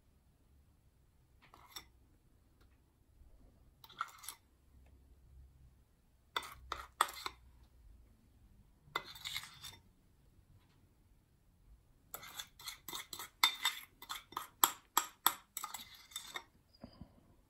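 Metal spoon clinking and scraping against a glass bowl and glass baking dish as a thick cinnamon topping is spooned out in dollops. Scattered single taps at first, then a quick run of about a dozen sharp clinks near the end as the spoon is scraped against the bowl's rim.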